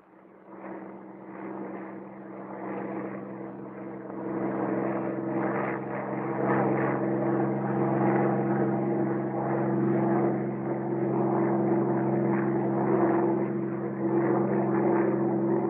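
Bell P-39 Airacobra's Allison V-12 engine droning in flight with a steady propeller note. It swells up over the first few seconds and then holds steady.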